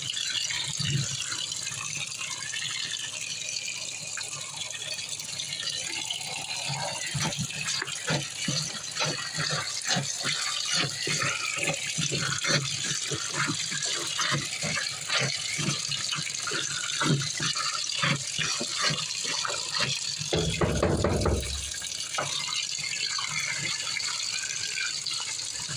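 Water running into a washing machine tub as it fills for the rinse, with many light knocks and rattles over it and a louder, lower rumble about twenty seconds in.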